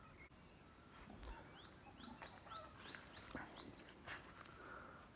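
Faint bird calling: a run of quick rising chirps, about four a second, for a couple of seconds, over quiet open-air background.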